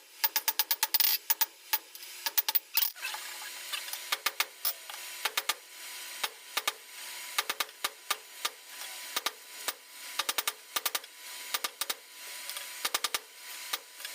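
Irregular sharp metal taps and scraping from working steel at the forge, over a faint steady hum.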